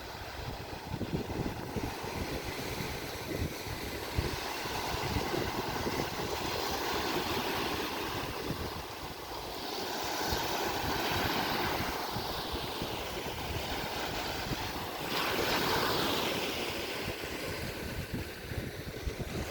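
Sea waves washing onto the beach, with wind buffeting the microphone. Two larger waves swell and break about ten and fifteen seconds in.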